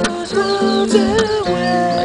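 Acoustic guitars strummed, with a man singing a melody over them.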